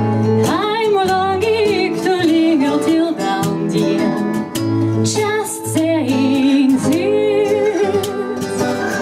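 A singer accompanied by a strummed acoustic guitar, the voice wavering with vibrato on long held notes over steady strokes of the strings.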